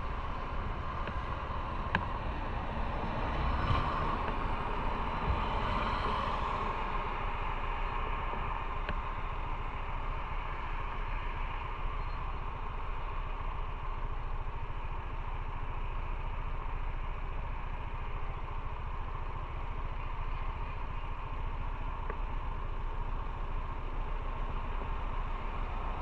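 Motorcycle riding at steady speed: engine and rushing wind and road noise, swelling slightly a few seconds in.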